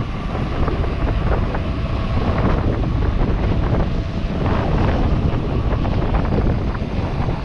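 Wind rushing over the microphone while a mountain bike is ridden along an asphalt road, with the tyres rumbling on the tarmac.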